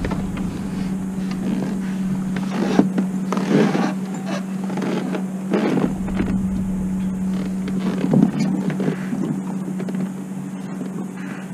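A motor running steadily with an even hum, with a few short knocks or scrapes on top.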